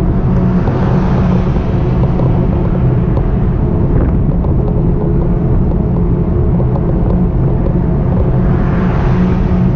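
Steady low rumble with a constant hum from a ride on an e-bike. A rushing noise swells and fades twice, about a second in and again near the end, like road vehicles passing.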